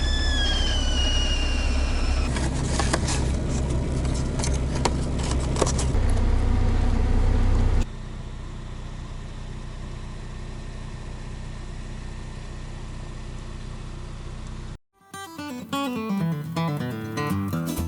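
Vehicle engine rumbling, with a brief falling whistle at the start and scattered clicks and knocks. About eight seconds in it drops to a quieter steady hum. Near the end, after a moment's silence, a short descending guitar-like music phrase plays.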